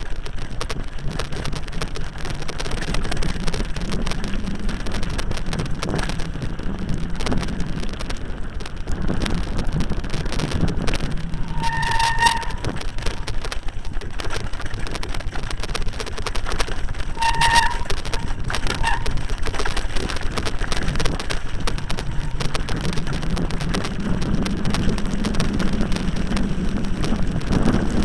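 Mountain bike clattering and rattling fast down a rocky, wet trail, with wind buffeting the camera microphone. Two short high squeals cut through near the middle.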